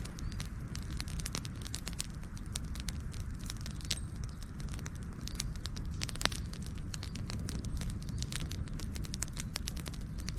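Campfire burning, with a dense, irregular run of sharp crackles and pops over a steady low rumble of the flames. One louder pop comes about six seconds in.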